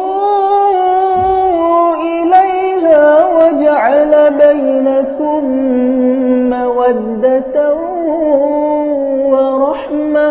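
Melodic Quran recitation: one voice draws out a single long phrase, its pitch wavering and gliding in tajweed-style ornament, and breaks off near the end.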